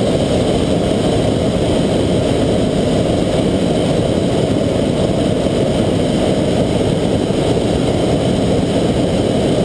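Hot air balloon's propane burner firing in one long, loud, steady blast.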